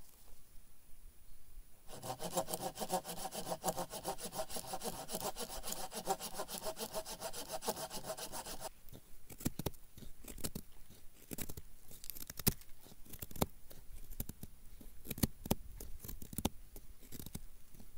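Knife blade shaving a dry wooden stick into a feather stick for fire-lighting. Rapid continuous scraping about two seconds in, then separate short shaving strokes.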